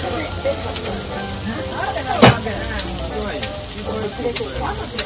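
Food sizzling steadily as it fries on a flat iron griddle, with small crackles, and one loud, sharp knock about two seconds in.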